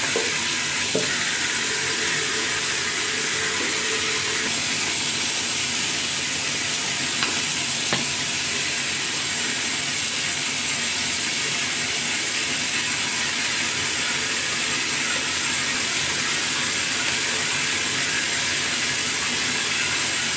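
Steady hiss of water running from a bathroom tap into the sink.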